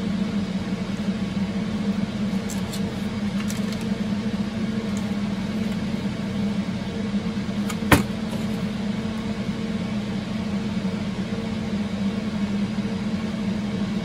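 Steady hum of computer server fans running in the background, with a few faint ticks and one sharp plastic click about eight seconds in as the weather station's plastic case is handled.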